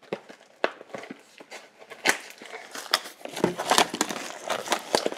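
Hands opening a cardboard trading-card box: irregular crinkling, tearing and clicking of cardboard and plastic wrapping, sparse at first and busier from about two seconds in.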